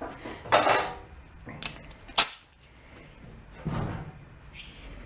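Knocks and handling noise from a small tubeless tiller tire being worked onto its rim to seat the bead, with one sharp snap about two seconds in and a faint hiss of air near the end.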